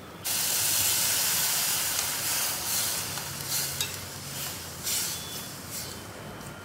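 Full-cream milk poured into a hot steel pot of rice roasted in oil, sizzling loudly the moment it hits the hot oil. The sizzle starts suddenly and slowly dies away, swelling briefly a few times as more milk goes in.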